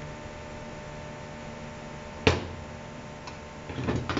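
Metal automatic-transmission parts being handled and fitted: one sharp clank about two seconds in, a small click a second later, then a short clatter of clicks near the end, over a steady hum.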